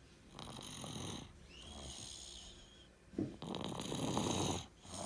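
A sleeping baby snoring: three noisy breaths in a row, the third, about three seconds in, the loudest, with a faint whistle riding on the middle one.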